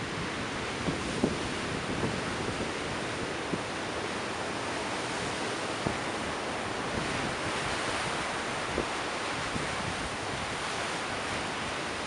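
Rough ocean surf rolling and breaking in a steady wash of noise that swells about seven seconds in. Wind buffets the microphone in a few short low thumps.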